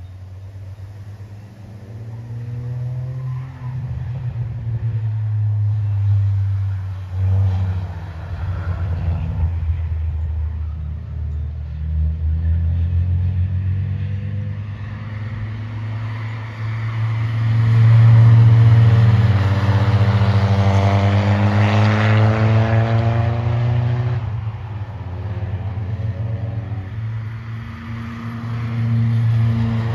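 Cars lapping a race circuit: engines accelerating hard and changing gear, the pitch climbing and then dropping back at each shift. The loudest car passes about two-thirds of the way through.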